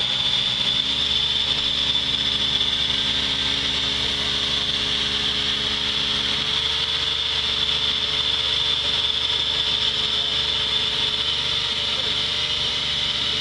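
Off-road 4x4's engine running at low revs as the vehicle crawls slowly over rough ground, its note shifting a little about halfway through. A steady high-pitched whine runs above it.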